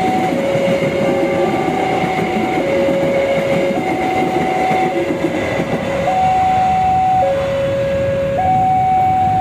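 Railway level crossing warning alarm sounding two alternating tones, a lower and a higher one, switching about once a second. Under it is the steady rumble of a passenger train's coaches rolling past on the rails.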